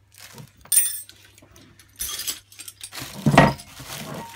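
Small loose metal parts clinking as they are handled, then plastic packaging rustling and a dull thump about three seconds in.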